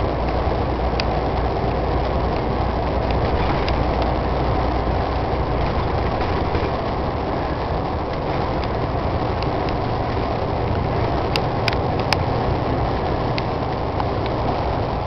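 Steady drone of a moving vehicle's engine and tyre noise heard from inside the cab, with a few sharp clicks about eleven to twelve seconds in.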